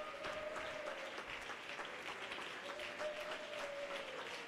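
A congregation applauding, heard faintly and evenly, with a faint held note underneath.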